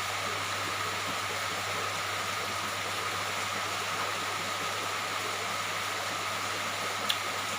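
Steady rain falling, an even hiss, with one small click about seven seconds in.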